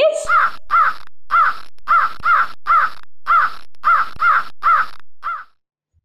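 Crow cawing repeatedly: about eleven short, harsh caws at roughly two a second, which stop abruptly near the end.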